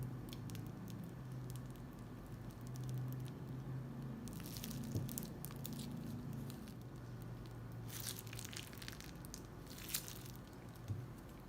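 Crunchy slime being squished and pressed by hand, giving scattered crackling pops with denser bursts about four seconds in and again around eight and ten seconds.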